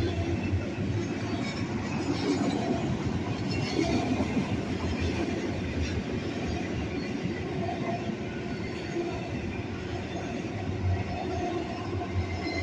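Freight cars of a long train rolling past, a steady rumble and clatter of steel wheels on the rails.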